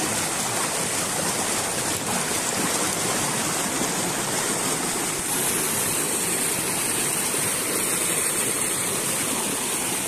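Shallow rocky river rushing over boulders in small rapids: a steady rush of water that turns a little hissier about halfway through.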